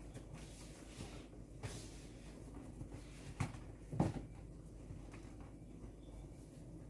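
Small clicks and knocks from items being handled and set down on refrigerator shelves, with two louder knocks in quick succession just past the middle.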